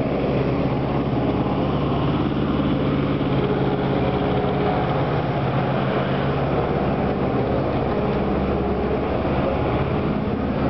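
Town-centre street ambience: a steady low engine hum from traffic under a constant wash of street noise.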